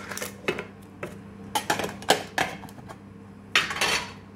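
Hands handling a small metal Pokémon mini tin and foil booster packs: a string of light clicks and clinks, then a short rustle of foil wrapper about three and a half seconds in.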